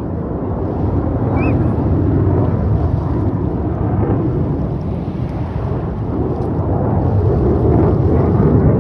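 Jet engine noise from a four-jet formation flying a loop overhead: a deep, steady rumble that grows louder near the end.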